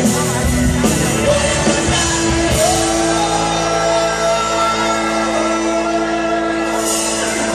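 Live pop-rock band with male lead vocals, keytar, electric guitar and drums. About three seconds in, the drumming thins out under a long held chord and sung note, and the drums come back in near the end.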